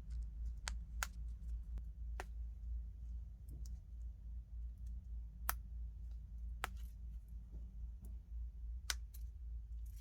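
A handful of sharp, scattered clicks, about eight, at irregular intervals over a low steady hum.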